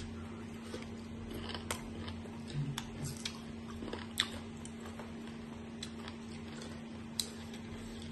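People biting and chewing crisp slices of green mango, with a few short sharp crunches and clicks scattered through. A steady low hum runs underneath.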